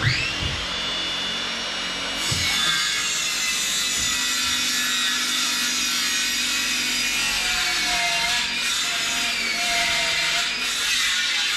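A handheld power tool spins up with a rising whine, then runs steadily on the wooden floor panel, its pitch sagging and recovering as it bears on the work.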